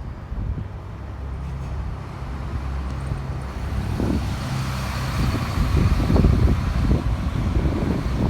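A large vehicle running steadily with a low hum, growing louder, with a rough rapid rumble from about four seconds in.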